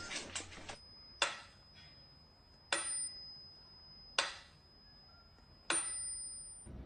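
Four sharp metallic clicks, evenly spaced about a second and a half apart, with a thin high ringing tone held between them.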